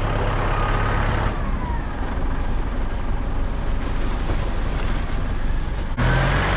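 Farm tractor engine running steadily with machinery noise. Its low hum drops away about a second in and comes back near the end.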